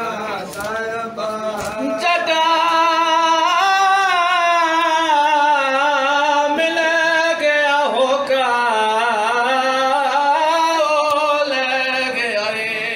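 A man singing a noha, a Shia mourning lament, in long held lines with a wavering, ornamented melody. A few sharp slaps sound in the first two seconds.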